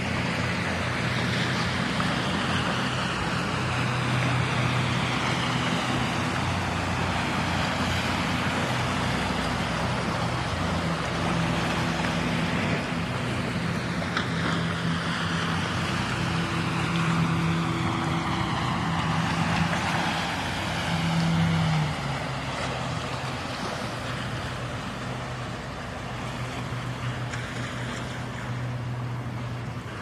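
Fishing boat's engine running with a steady low hum over the wash of water. About two-thirds of the way through, the engine note drops in pitch and the sound grows quieter as the boat passes.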